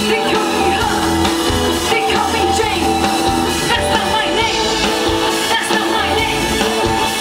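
Live pop-rock band playing, with keyboard, guitars and bass under a female lead singer, recorded from among the audience.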